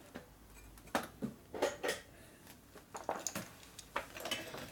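Scattered light metallic clinks and taps of hand tools being picked up and handled on a workbench, a dozen or so irregular strikes with quiet gaps between them.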